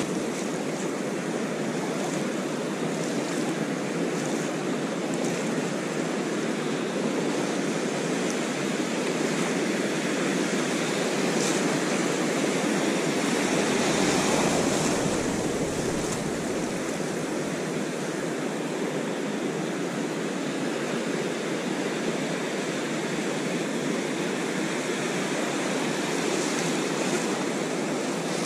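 Ocean surf washing in and breaking along a beach, a steady rushing that swells louder about fourteen seconds in.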